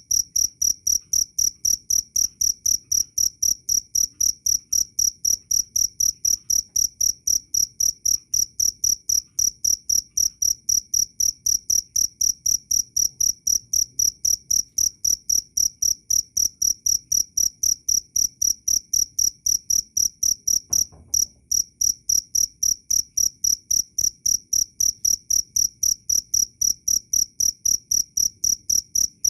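Cricket chirping, loud and clear: a high-pitched chirp repeated evenly about four times a second, with one brief break about 21 seconds in.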